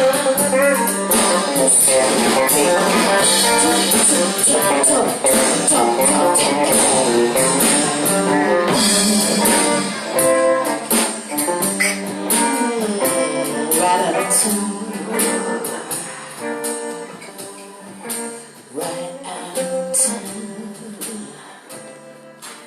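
Blues band playing live in an instrumental passage led by guitar, with bass and percussion behind it. Dense and loud at first, the playing thins out and gets steadily quieter over the second half.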